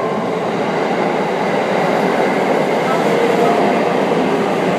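Thunderbird limited express electric train running past close by along the platform: a steady rush of wheel and running noise that holds at one level throughout.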